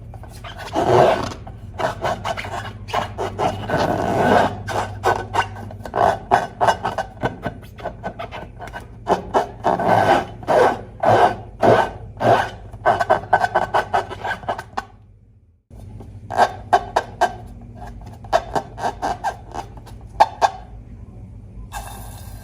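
A slime-filled rubber balloon being rubbed and squeezed by hand: a fast, irregular run of short scraping squeaks, broken off once about two-thirds of the way through.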